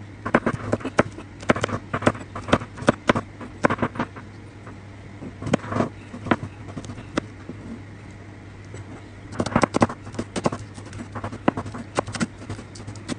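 Chef's knife chopping chilies and then green onions on a plastic cutting board: quick runs of sharp knocks, several a second, with short pauses between runs.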